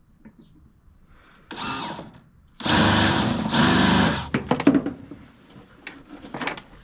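Handheld power drill run in two bursts: a short one, then a longer run of nearly two seconds with a steady motor whine. A few small clicks and knocks follow.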